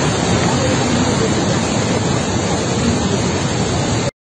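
Steady, loud rushing of a swollen, muddy river in flood, surging along a collapsing bank. It cuts off abruptly near the end.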